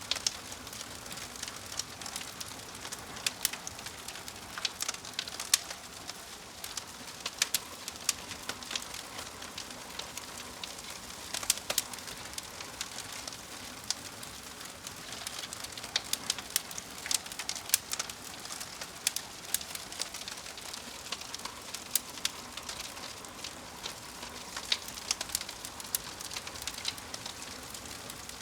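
Wood fire crackling: irregular sharp pops and snaps, several a second at times, over a steady hiss of burning.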